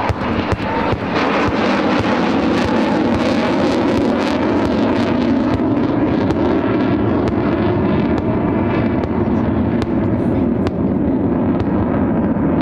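Sukhoi Su-22 M4K's AL-21F-3 turbojet running loud and steady overhead, with sharp crackles throughout.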